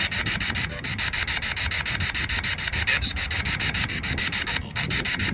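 Spirit box, a radio that sweeps continuously through stations, giving out hissing static chopped into rapid pulses, about ten a second, as it scans the band.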